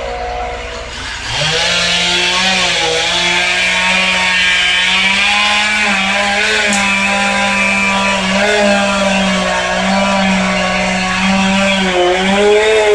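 Chainsaw revs up about a second in and runs at full throttle for about eleven seconds, its pitch dipping slightly now and then as it cuts through wood, then drops back toward idle near the end.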